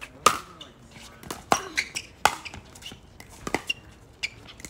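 Pickleball paddles striking the hard plastic ball in a fast doubles rally: four sharp pocks about a second apart, the loudest just after the start, with softer taps between.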